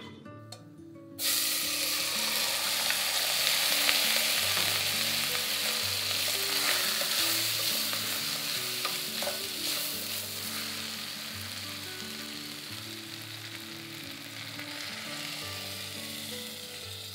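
Rice frying in hot oil in a steel pot: a loud sizzle starts suddenly about a second in, with a wooden spoon stirring it, then slowly dies down. Near the end, water is poured in. Soft background music plays underneath.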